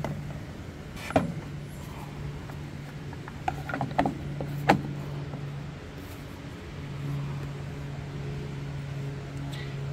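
A few light clicks and knocks as the plastic air-cleaner cover of a Predator 212cc small engine is pushed down over the filter and seated, over a steady low hum.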